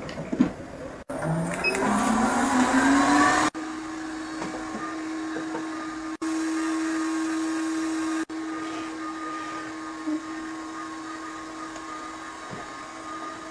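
Robot vacuum-mop's motor whining up in pitch as it starts, then running with a steady hum. The sound breaks off abruptly several times at edit cuts.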